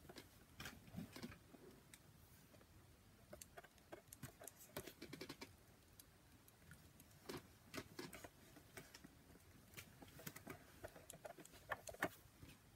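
Near silence with faint, scattered small clicks and taps from handling a lipstick and a plastic compact mirror.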